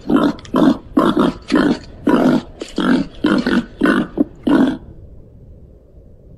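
Babirusa calling with a rapid series of about a dozen short grunts, roughly two a second, that stop about five seconds in.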